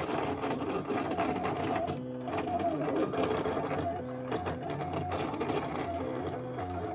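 Cutting plotter's motors whirring as it drives the blade carriage and feed rollers to cut out a printed image, the whine changing pitch in short steps every second or so as the moves change.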